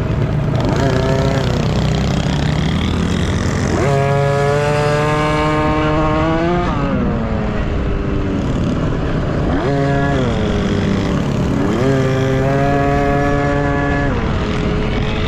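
Dirt bike engines racing off-road, revving up sharply several times, holding high revs for a second or two, then dropping off as the throttle is rolled back.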